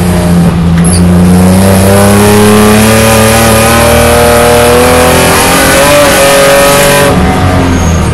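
BMW E9x 3 Series race car's engine heard from inside the cockpit, pulling hard under full throttle with its pitch rising steadily for about seven seconds. Near the end an upshift breaks the sound briefly and drops the pitch.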